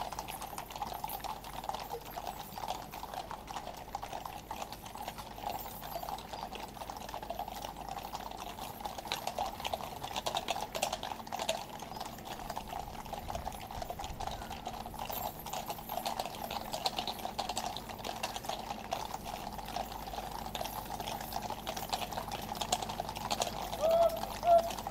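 Hooves of a troop of cavalry horses clip-clopping on the road, a dense continuous patter of many hoof strikes, with a brief louder sound near the end.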